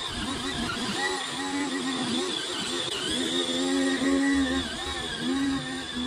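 Home-built remote-control weed trimmer running, its motor and spinning cutter head giving a high whine with a pitch that wavers and dips again and again as it cuts through grass.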